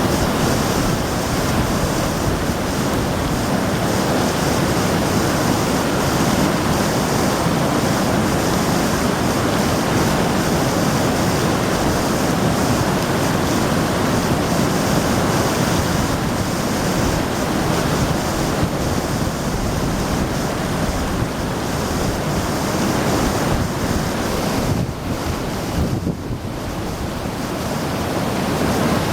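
A river in flood rushing past, a loud steady wash of water noise that dips briefly near the end.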